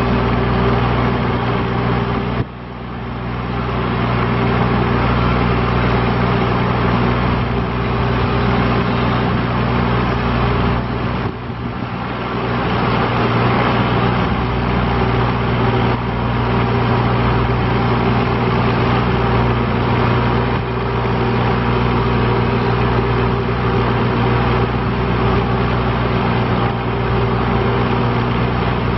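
Engine of a Toro Dingo compact utility loader running steadily, driving its hydraulic backhoe attachment. The sound dips briefly about two and a half seconds in and again about eleven seconds in.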